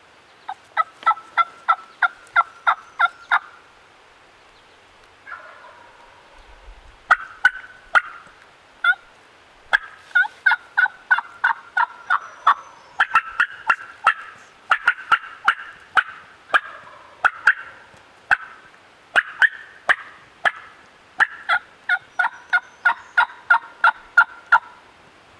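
Turkey yelping: long runs of loud, evenly spaced notes, about four a second, in a short bout at the start and then almost without a break from about a quarter of the way in.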